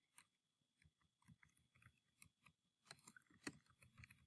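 Faint, irregular clicks of someone typing on a computer keyboard, with one sharper keystroke about three and a half seconds in.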